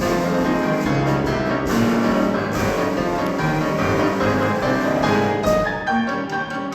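Piano and drums playing an early-1900s march in a lively duet. A few sharp crashes ring out above the piano during the passage.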